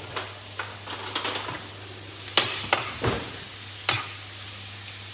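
Sliced fennel and shallots sizzling gently in olive oil in a frying pan, while a metal spoon stirs, scrapes and taps against the pan in about eight sharp clicks and clinks. A steady low hum runs underneath.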